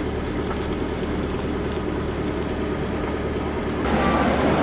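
Steady low drone of a moving vehicle, with wind noise on the microphone. About four seconds in it switches abruptly to louder, rougher wind and road noise.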